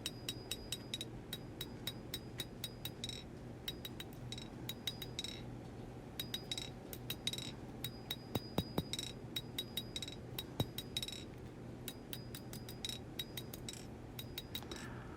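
Light hammer taps on a hot W-2 steel knife blade over the anvil, in quick runs of ringing taps with short pauses, a couple of sharper strikes in the middle, as the blacksmith planishes and straightens the blade.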